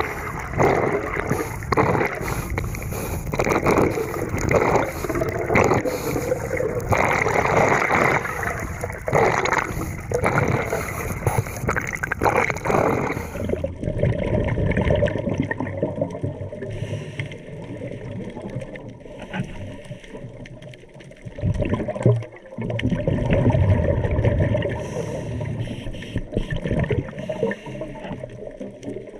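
Scuba regulator breathing underwater: exhaled air bubbling out in uneven gurgling surges, turning duller and more muffled about halfway through.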